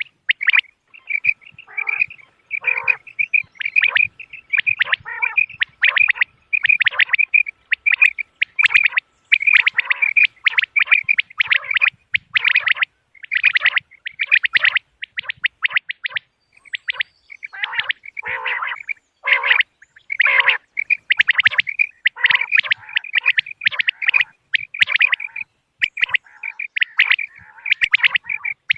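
Common quail calling over and over: quick clusters of short, sharp, high-pitched notes with brief pauses between them.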